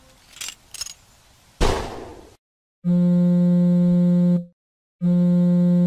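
A couple of faint clicks and a loud hit that dies away, then, after a moment of silence, a phone ringback tone: two long, steady low beeps with a short gap between them.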